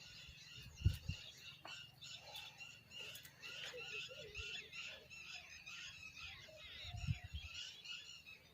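Many small birds chirping together in a steady, dense chorus, with two low thumps, the louder about a second in and another near the end.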